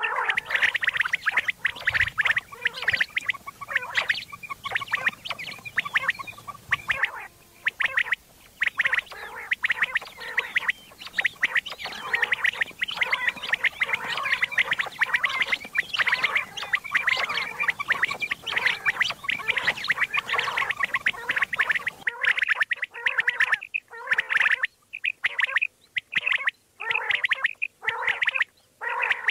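Common quail calling in rapid, dense runs of chattering notes, broken by short pauses in the latter part.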